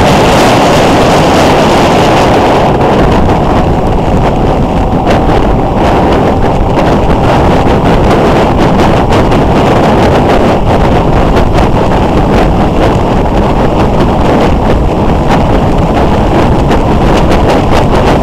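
Wind rushing and buffeting on a motorcycle camera's microphone at road speed, with the motorcycle's engine running steadily underneath.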